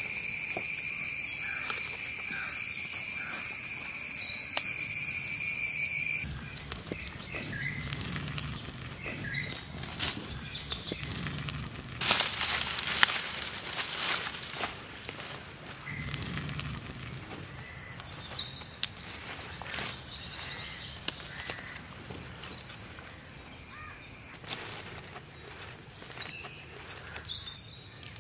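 Forest insects buzzing steadily at a high pitch, the loud first buzz cutting off abruptly about six seconds in and a softer insect chirring carrying on, with a few bird chirps. Around the middle comes a short spell of crackling from a small fire of dry leaves and twigs.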